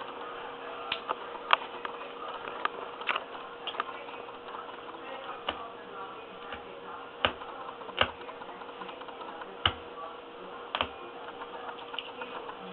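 Knife cutting and pulling through carpet backing, heard as irregular crisp clicks, scratches and a few sharp snaps, spaced unevenly. A faint steady hum runs underneath.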